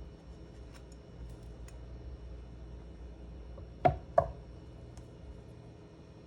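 Two sharp knocks of a kitchen utensil against cookware about a third of a second apart, each with a short ring, after a few faint clicks.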